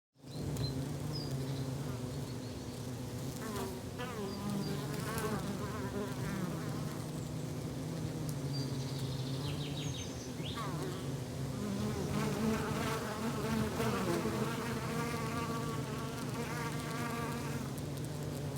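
Forest ambience dominated by a steady low buzzing of flying insects, with wavering higher notes and a few short high chirps over it.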